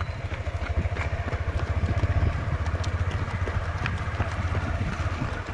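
Running footsteps of a group of runners on a paved road, a quick irregular patter of shoe strikes, over a steady low rumble.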